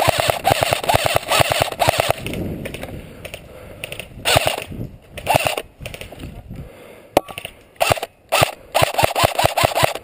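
Airsoft rifle firing rapid automatic bursts. There is a long burst at the start, short bursts about four and five seconds in, and several quick bursts near the end.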